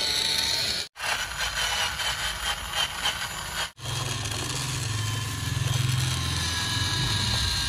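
Toy RC tractor's small electric motor and gearbox running as it drives through sand. The sound breaks off briefly twice. The last few seconds are a steadier, lower hum.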